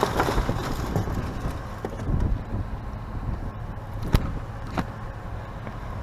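Rummaging through trash: rustling and a few light knocks as items are handled, with one sharp click about four seconds in, over a steady low rumble.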